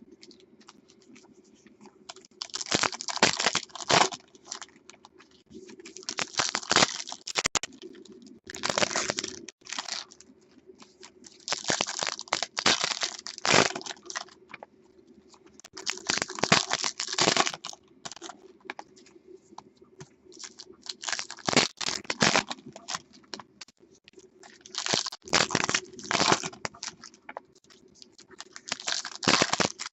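Foil trading-card pack wrappers being crinkled and torn open, in repeated bursts of crackling with short pauses between.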